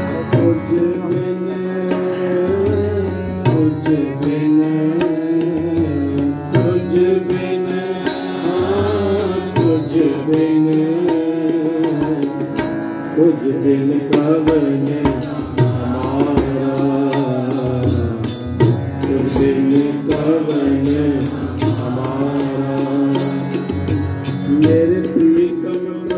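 Sikh shabad kirtan: a man singing a devotional hymn with a wavering melodic line, accompanied by harmonium and by tabla strokes in a regular rhythm.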